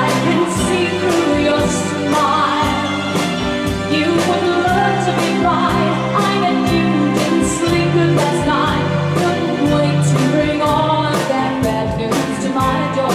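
A woman singing a pop ballad into a microphone, backed by a band with a steady drum beat.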